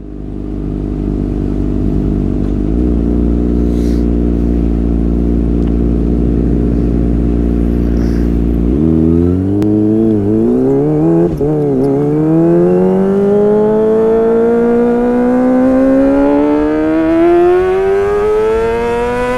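Kawasaki ZX-25R's 250 cc inline-four engine through a Sportisi Motorsport SRX aftermarket exhaust, idling steadily, then blipped a few times about nine to twelve seconds in, then revving in a long, smooth climb of pitch that drops off suddenly near the end.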